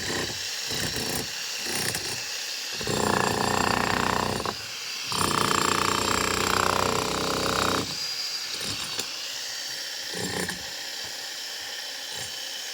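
Power tool cutting into a concrete slab. It runs in two louder stretches of a couple of seconds each in the middle, with a short dip between them and quieter running before and after.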